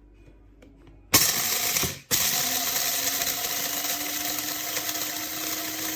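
Amazon Basics electric blade coffee grinder switched on about a second in, cut off for a moment, then switched on again. Its motor and blade run with a loud, steady whir over a steady hum.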